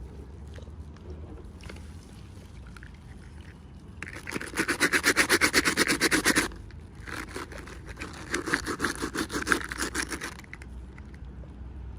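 Rapid scraping, about seven strokes a second, in two runs: a louder one starting about four seconds in and lasting some two and a half seconds, and a second, slightly softer one right after. Light handling noises come before them.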